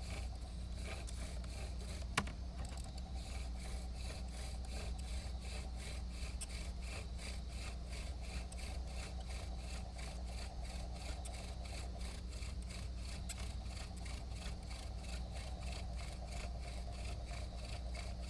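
Bow drill in use: the wooden spindle driven back and forth by the bow, rubbing and grinding against the wooden hearth board in a quick, even rhythm of strokes, the friction stage of making an ember. A single sharp click about two seconds in.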